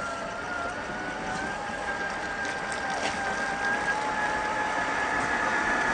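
Electric motor and gear train of an RC4WD Trail Finder 2 scale crawler whining steadily as it drives, the pitch stepping up slightly about one and a half seconds in and again near four seconds, over the faint crackle of its tyres on wet gravel.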